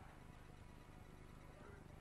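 Near silence: only a faint, even background hiss.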